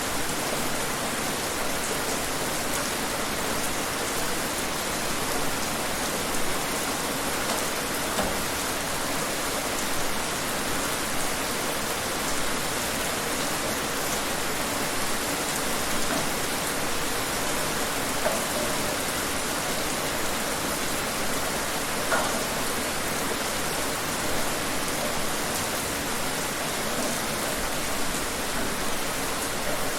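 Steady rain falling outdoors: an even hiss of rainfall with occasional louder drops.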